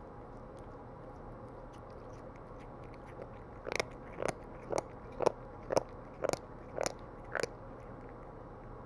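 Bengal cat chewing soft food with loud, noisy chewing sounds: a run of eight chews about two a second, starting a few seconds in.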